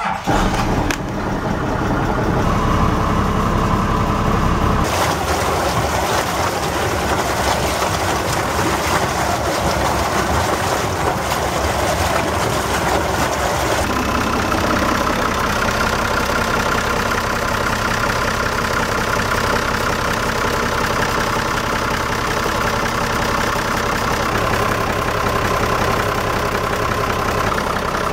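Yamaha inboard diesel engine started with the key, catching right away and then idling steadily.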